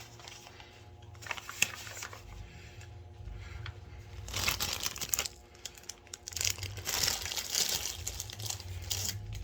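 Crinkling of a cookie package as it is handled, in irregular rustles with small clicks, louder about four seconds in and again in the second half.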